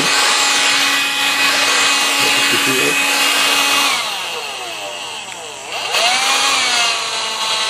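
Electrolux cordless stick vacuum's motor running at full speed with a steady whine. About four seconds in it is switched down: the pitch falls, dips, and climbs back to a lower steady tone at its low speed about six seconds in.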